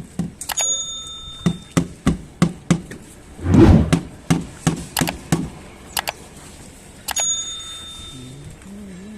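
Irregular sharp knocks and clicks, roughly one or two a second, with two brief metallic rings, about a second in and again near the end. A louder, longer thump comes about three and a half seconds in.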